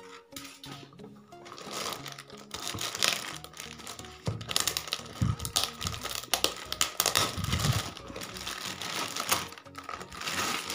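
Clear plastic wrapping crinkling and rustling as it is pulled off a DVR by hand, growing dense from about two seconds in, over background music.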